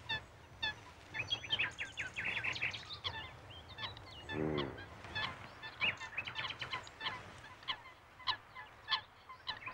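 Birds calling in the open: many short, repeated high chirps throughout, with one lower, drawn-out call lasting about half a second about halfway through.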